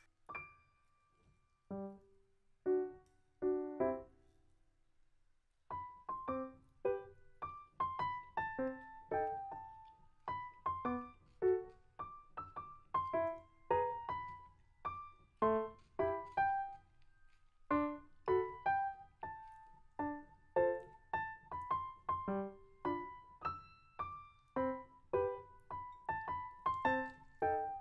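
Light, piano-led background music: a few sparse keyboard notes at first, then after a short pause, about six seconds in, a steady bouncy rhythm with bass underneath.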